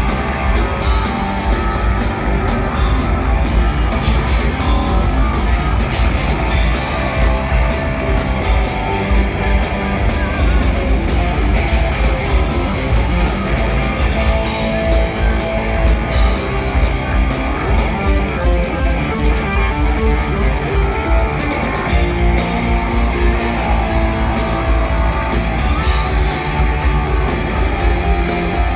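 Live rock band playing loud: electric guitar, bass guitar and drum kit together, heard from the audience with heavy, boomy low end.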